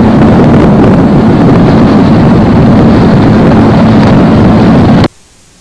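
Loud wind buffeting the microphone on a moving boat, with a steady low hum underneath. It cuts off suddenly about five seconds in, leaving a low hiss.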